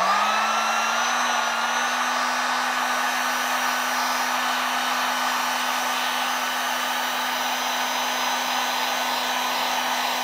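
Electric heat gun switched on, its fan motor spinning up in the first second and then blowing steadily with a constant whine. It is melting wax into waxed canvas.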